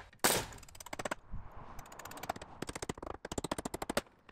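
Pneumatic nail gun firing nails into plywood roof sheathing: one loud shot about a quarter second in, then a quick run of shots, several a second, in the second half.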